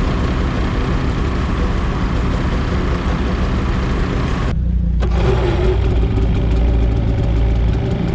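Snowmobile engines idling with a steady low rumble; about halfway through, the higher part of the sound cuts out for half a second, leaving only the low rumble.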